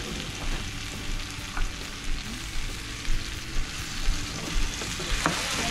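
Chopped tomatoes and onions sizzling in hot oil in a nonstick skillet: a steady frying hiss, with a few short knocks as a silicone spatula stirs the pan.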